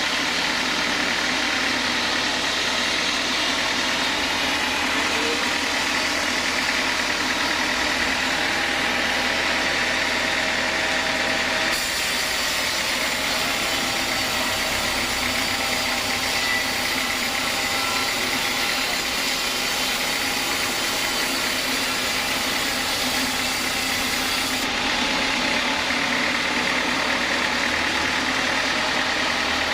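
Sawmill saw machinery running with a steady mechanical drone and hiss, shifting abruptly twice.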